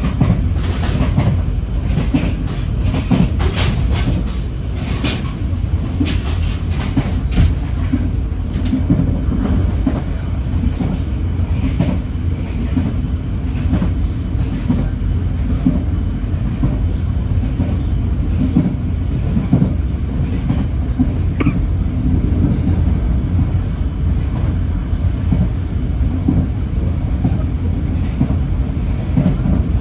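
Moving passenger train heard from inside the carriage: a steady low rumble of wheels on track. For the first several seconds it is overlaid with a quick run of sharp clicks and rattles, then it settles into the plain rumble with an occasional click.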